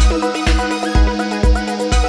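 Background electronic dance music with a steady kick drum about twice a second under a busy synth melody.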